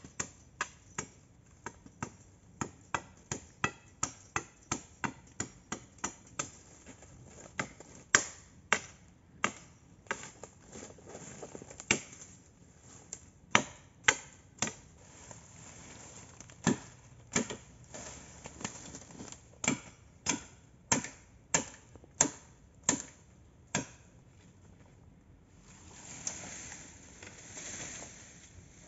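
Bamboo being chopped with a blade: a quick run of sharp blows at about two or three a second, then slower, irregular and heavier blows. Near the end, a rustle of leaves and stalks as the cut bamboo pole is moved through the undergrowth.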